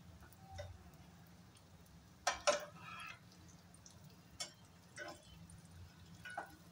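Metal spatula knocking and scraping against a nonstick frying pan as lentil-paste patties are placed and nudged in shallow oil: a few separate clinks, the loudest pair about two and a half seconds in.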